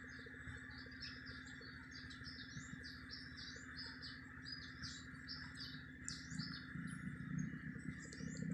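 Small birds chirping rapidly and faintly, many short high notes one after another, over a steady insect drone.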